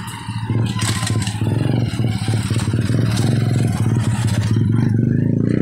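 Small motorcycle engine running close by, its revs rising near the end, with gravel being scraped and clattering over it.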